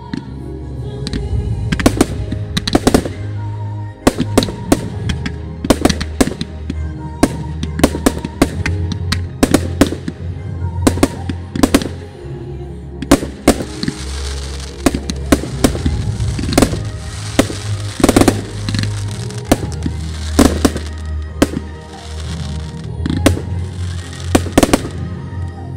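Fireworks going off: a steady run of sharp bangs from aerial shells bursting, one to several a second, with a fizzing crackle through the second half.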